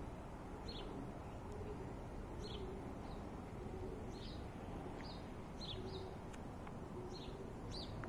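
A small bird chirping: short, high calls repeated about once a second, some in quick pairs, over a steady low hiss.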